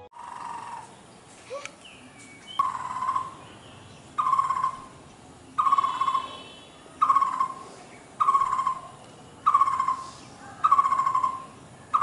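Blue-throated barbet calling: a loud, rolling note repeated evenly about every one and a half seconds, eight times over. Faint chirps of other small birds are heard between the calls.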